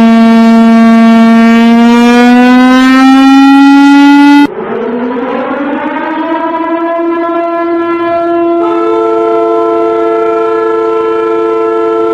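Warning sirens in succession. The first holds a pitched wail that slowly rises and cuts off abruptly about four and a half seconds in. A second siren then winds up and settles on a steady note, and a second, higher note joins it about eight and a half seconds in, making a two-tone chord.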